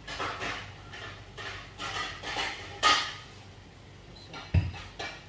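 Chicken pieces sizzling and spattering in a hot frying pan, in irregular hissing bursts, the loudest about three seconds in. A dull thud near the end.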